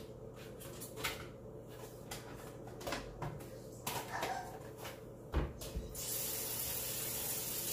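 Kitchen handling sounds: a few scattered knocks and clatters. About six seconds in, a steady hiss of water running from a tap starts suddenly.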